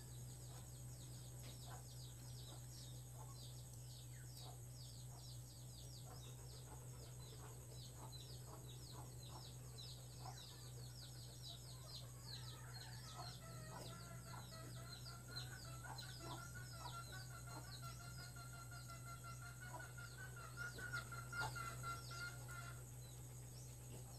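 Birds chirping rapidly in the background, many quick high chirps, over a steady low hum. From about halfway through, a faint wavering tone joins for about ten seconds.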